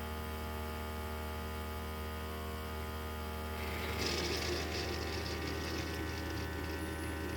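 Single-serve coffee maker brewing: a steady hum from its pump, joined about four seconds in by a hiss of hot water.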